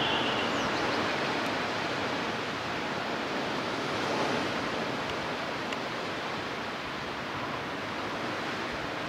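Small waves washing at the water's edge, a steady rushing hiss that swells and eases slightly.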